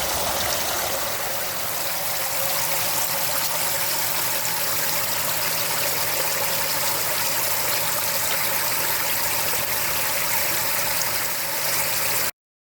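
Water running and splashing steadily into a chest-freezer bait tank as it fills, under a faint steady hum; it cuts off suddenly near the end.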